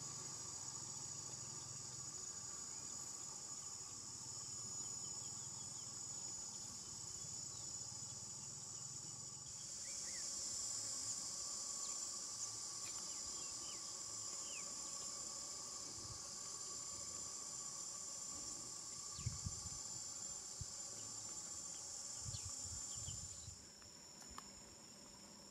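Steady high-pitched buzzing of an insect chorus. It swells about ten seconds in and fades shortly before the end, with a few soft thumps in the last few seconds.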